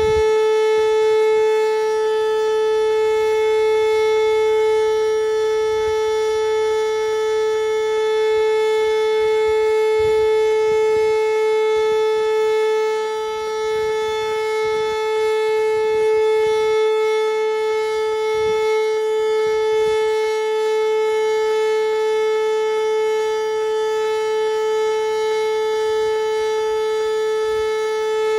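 Outdoor tornado warning siren sounding one long steady tone that holds its pitch without rising or falling.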